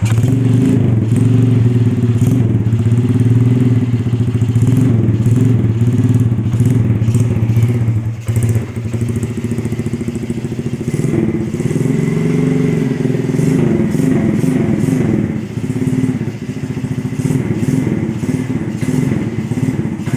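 Yamaha Jupiter single-cylinder four-stroke engine fitted in a Honda Win motorcycle, running loudly with the throttle blipped up and down. It comes in suddenly at the start and dips briefly about eight seconds in.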